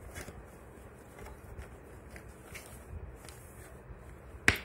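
Fabric seat cover rustling and scraping as it is pressed and tucked into a plastic baby walker seat, with faint scattered clicks and one sharp click near the end.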